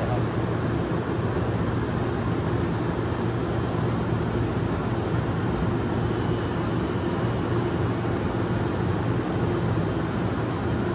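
Giddings & Lewis VTC1250 CNC vertical boring mill running with its table spinning at about 100 rpm: a steady hum under an even hiss.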